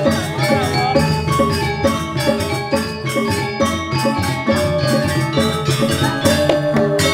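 Balinese gamelan playing: bronze metallophones struck in a fast, even rhythm, with many ringing pitched notes.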